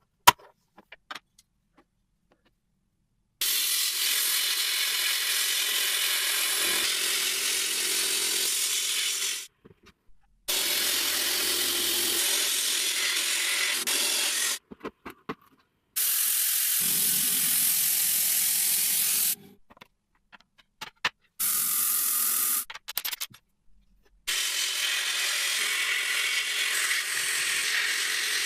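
A workshop tool running with a steady, hissing whir in five separate stretches, each starting and stopping abruptly.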